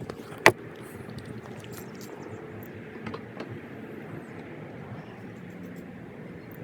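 A single sharp click about half a second in, then a couple of fainter clicks around three seconds in, over steady low background noise. These are tool and hardware clicks as a ratchet with a 10 mm socket is used on the car battery's terminal to reconnect it.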